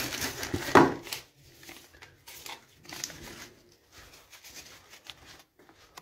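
Paper leaflets and packaging rustling and crinkling as they are handled and leafed through, loudest in the first second, then fainter scattered rustles.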